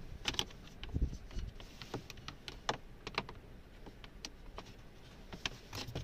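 Hard plastic cover plate of a cabin air filter housing being handled and fitted back over the housing: scattered light clicks and knocks of plastic against plastic trim, at irregular intervals.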